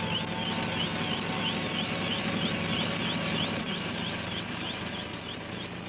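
Small helicopter running with its rotor turning: a steady engine hum under a high warbling whine that pulses about four times a second. It eases off slightly in the second half.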